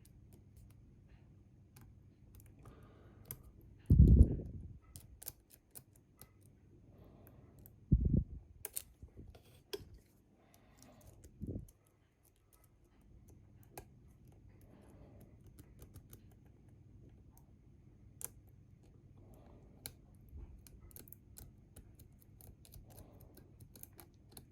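Lock-picking tools working inside a Bi-Lock cam lock: scattered small, light clicks and scratches of the picks against the pins. Three dull thumps come about 4, 8 and 11 seconds in.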